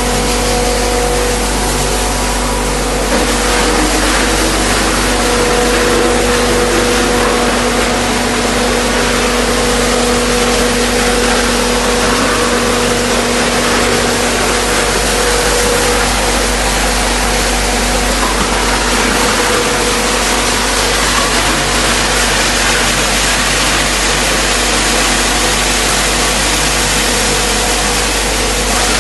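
EPS/XPS styrofoam waste crusher running while foam sheets are fed into its hopper and ground up: a loud, steady machine noise with a constant hum.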